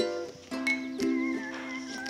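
Background music: strummed string chords about every half second with a wavering melody line on top.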